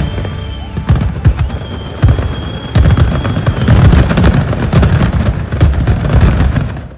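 Fireworks going off: repeated deep booms and sharp crackling bangs, coming thicker after the first few seconds. A steady high whistle of a rocket runs for about two seconds through the middle. Everything drops away abruptly at the end.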